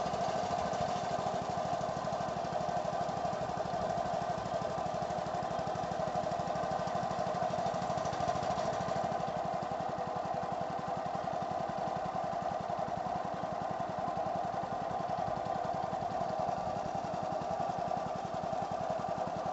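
Boat engine running steadily under way, a constant mechanical hum with an even rapid pulse.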